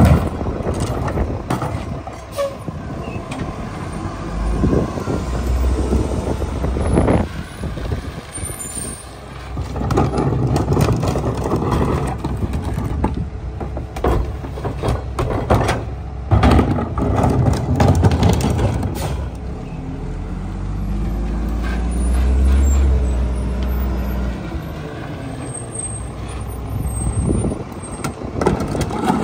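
Mack MR garbage truck's diesel engine running under the Leach rear-loader packer as it cycles, with several sharp bangs as trash carts are tipped into the hopper. The engine swells for a few seconds past the middle.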